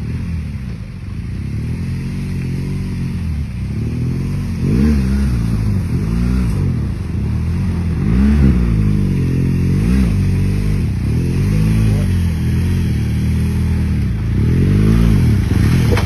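Off-road motorcycle engine revving up and down every second or two as the rider works through a creek crossing, getting louder as it comes close.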